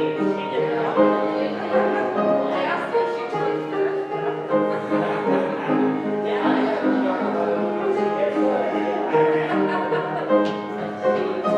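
Instrumental music led by piano, with sustained chords played continuously, and voices talking underneath.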